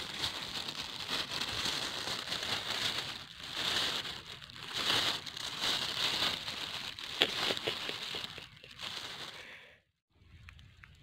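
Clear plastic bag crinkling and rustling as it is handled close up, with uneven swells and a few sharp crackles. It cuts off suddenly near the end.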